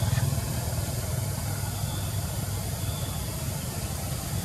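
Steady low hum of an idling engine, running evenly throughout.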